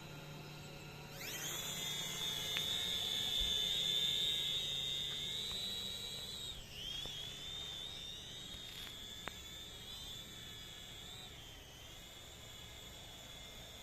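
TENSSENX GPS quadcopter drone's motors and propellers spinning up about a second in to a steady high whine. After about six seconds the pitch dips and wavers, and the whine grows quieter.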